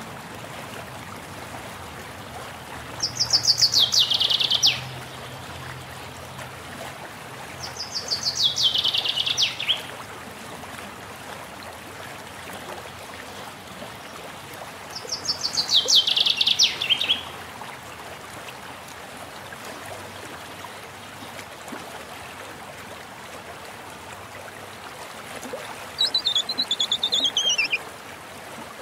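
Birdsong over a steady hiss of running water. A bird gives a fast trill that falls in pitch three times, each about a second and a half long, and near the end a different falling call is heard.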